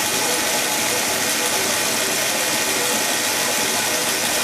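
Steady, even mechanical noise with faint steady tones in it, unchanging throughout.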